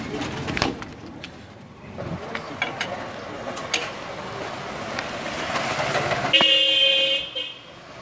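A vehicle horn sounds once, a steady tone lasting about a second near the end, over street noise. Earlier come a few sharp metal clinks of a lug wrench on wheel nuts.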